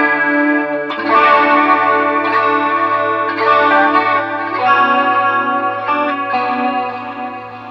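Electric guitar played through a Line 6 Helix LT multi-effects processor: chords ring out and change every second or so. The unit is being sound-tested after repair of rain damage, and it is passing sound.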